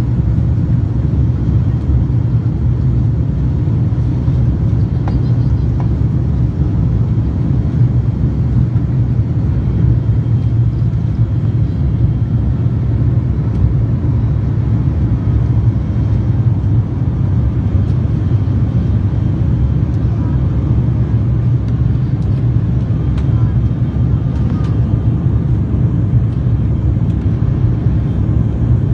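ATR 72-500 turboprop engines and propellers running, a loud, steady low drone.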